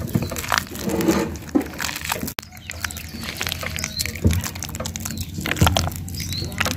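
Bare hands squishing and mashing very ripe peeled bananas in a glass bowl: a run of wet squelches and crackles, with a couple of duller knocks as the hand presses down on the bowl.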